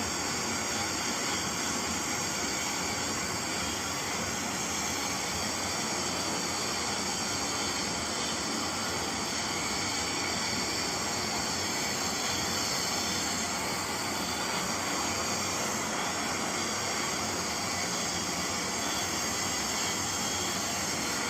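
Brazing torch flame burning with a steady hiss while a pipe coupling is heated, keeping the joint hot enough for the brazing rod to melt and flow into the fitting.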